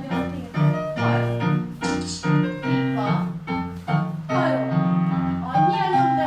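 Piano music with a steady, even beat: chords changing about twice a second over a moving bass line.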